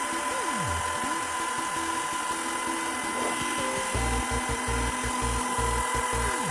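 Small CNC router cutting a PCB: the spindle gives a steady high whine while the stepper motors hum at pitches that jump as the axes change speed, some gliding down as an axis slows to a stop. From about four seconds in, a low hum cuts in and out repeatedly.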